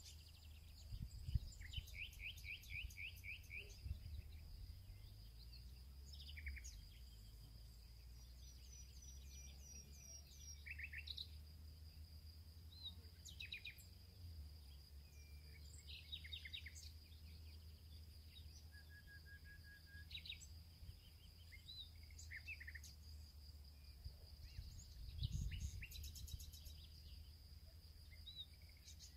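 Faint birds chirping and twittering in short calls and trills, over a steady high-pitched whine, with a low rumble and a few soft low thumps near the start and about 25 seconds in.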